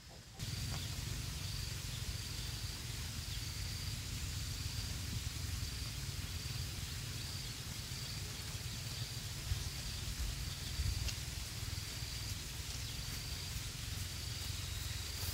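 Outdoor ambience: an insect chirping in a steady, evenly repeating pulse, about one and a half chirps a second, over a low rumble and hiss.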